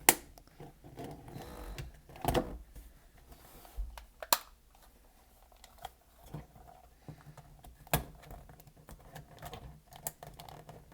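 Plastic clicks and snaps of a DualShock 4 controller's shell halves being pried apart, with handling and scraping between them. A few sharp clicks stand out, one right at the start, two more about two and four seconds in, and another near eight seconds.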